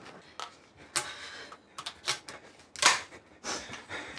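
A run of irregular sharp clicks and knocks, the loudest about three seconds in.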